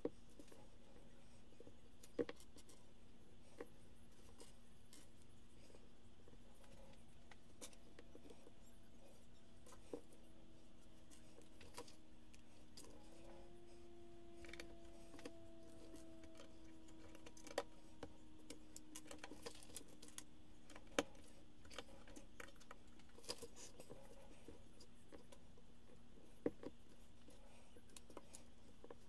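Plastic Lego bricks being sorted and pressed together by hand: scattered sharp clicks at irregular intervals, with a brief quick run of them about two-thirds of the way in. A faint steady hum lies underneath.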